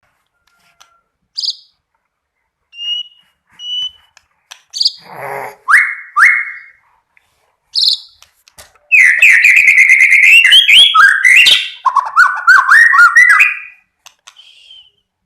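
White-rumped shama singing: scattered short whistles and chirps, a short harsh rasping note about five seconds in and two quick rising whistles just after, then a loud, fast run of rapid notes lasting about five seconds from about nine seconds in.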